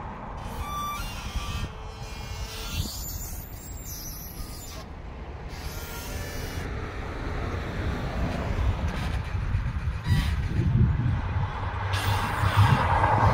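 Roadside traffic by a highway, with wind rumbling on the microphone; near the end a car goes by close, its engine and tyres getting louder.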